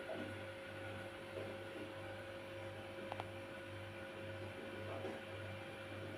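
A sleeping cat's low snoring rumble, steady but breaking briefly about once a second with its breaths, over a faint steady hum.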